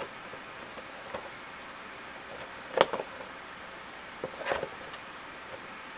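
A Funko Pop's cardboard window box being handled and turned over in the hands: a sharp click a little under three seconds in and a short cardboard rustle about a second and a half later, over a steady low hiss.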